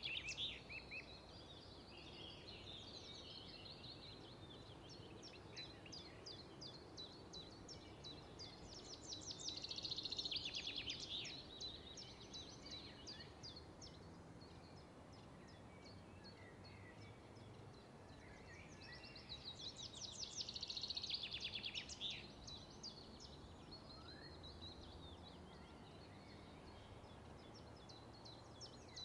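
Songbirds singing in quiet wetland woods: a fast, high trilled song comes in bouts of two or three seconds, loudest about ten and twenty seconds in, with scattered fainter chirps between and a soft low hush beneath.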